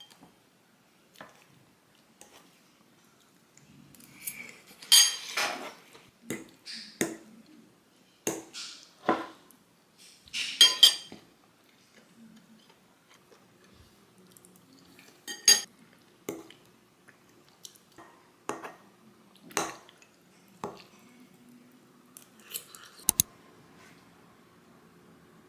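Metal fork clinking and scraping against a ceramic bowl while eating pasta, in scattered separate strokes, the loudest about five, ten and fifteen seconds in. A short sharp click near the end.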